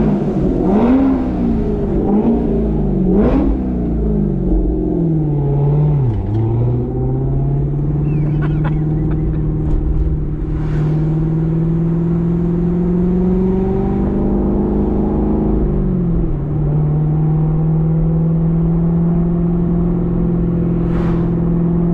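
Corvette Z06's supercharged 6.2-litre V8 blipped in three quick rev bumps in the first few seconds. It then pulls away through a manual gearbox, the engine note climbing steadily and dropping at each upshift, about six seconds in and again near sixteen seconds.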